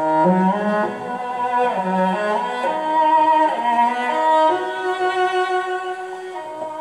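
Classical music for bowed strings, played loudly through a Panda F-236 cassette tape radio's speaker. It jumps up in volume right at the start, as the volume is turned up to test how loud the set can go.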